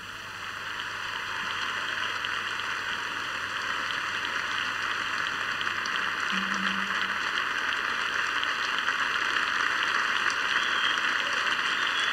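Large audience applauding, a dense steady clapping that starts softly and gradually builds louder.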